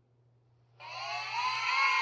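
Kids cheering sound effect: after a near-silent gap, a crowd of children screaming and cheering swells in just under a second in and carries on loud.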